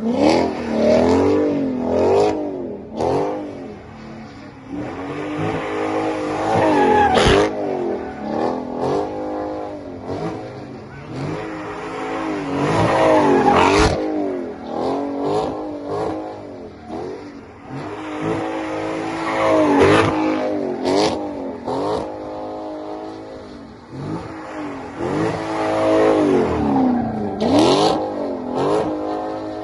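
Dodge Charger doing donuts in its own tire smoke. The engine revs up and falls back over and over, surging roughly every six or seven seconds, over the hiss of spinning rear tires.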